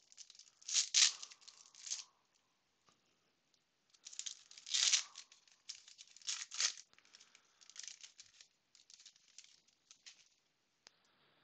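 Foil trading-card pack wrapper being torn open and crinkled by hand, in irregular bursts of rustling that are loudest about a second in and again around five seconds in.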